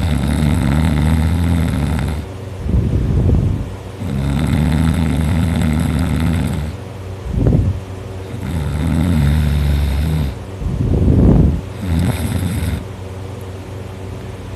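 A teenager snoring loudly in deep sleep: four long droning snores of about two seconds each, every one followed by a short noisy breath, the last snore shorter, then only quiet breathing noise near the end.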